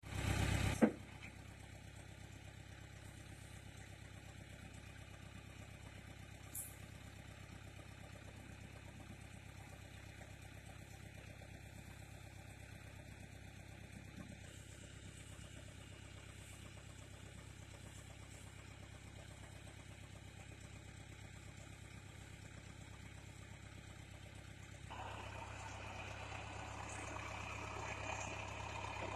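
John Deere farm tractor engine idling steadily, then running louder from about 25 seconds in. A short burst of noise right at the start.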